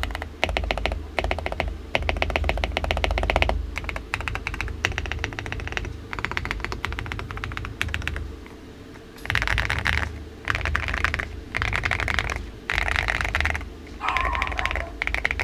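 Weikav WK75 mechanical keyboard with lubed Akko V3 Cream Yellow Pro linear switches and MOA-profile keycaps, being typed on fast. The key presses run in a steady stream for about the first half, then come in short bursts of rapid presses about a second long with brief pauses between them.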